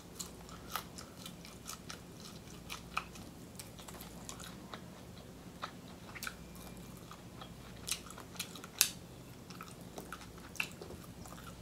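Quiet close-up chewing with scattered small clicks and cracks of king crab leg shell being picked apart by hand. The sharpest crack comes about nine seconds in.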